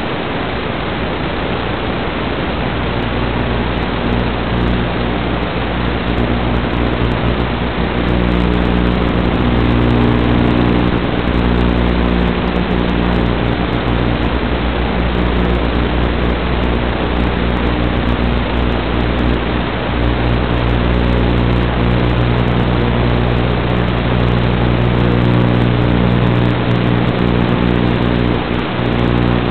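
Steady loud hiss of radio static with a low buzzing hum underneath, from the audio of an analog FPV video link.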